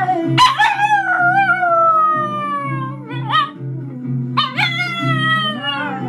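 Papillon dog howling along to a recorded song: one long howl falling in pitch, a brief cry about three seconds in, then a second falling howl from about four and a half seconds.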